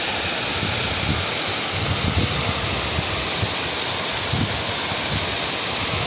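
Waterfall cascading down rock ledges: a loud, steady rush of falling water.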